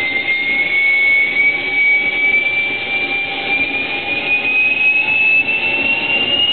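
Small jet turbine engine running just after light-off, spooling up: a steady rushing roar with a high whine that rises slowly in pitch.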